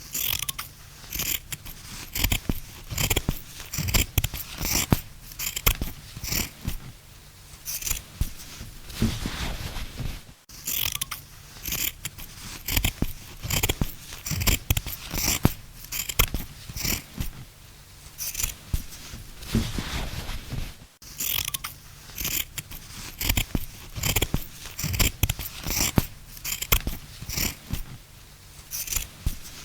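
Scissors cutting through cloth: a steady run of snips, about one or two a second, each a short crisp clip. There are two very brief dropouts, about a third and two thirds of the way through.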